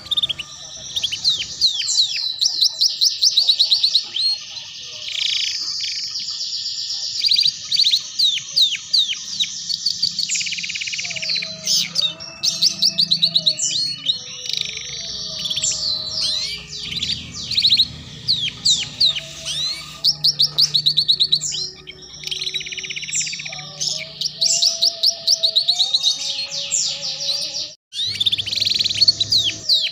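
Domestic canary singing a long, fast ngeriwik-style song of rapid high trills and rolls, breaking off briefly near the end.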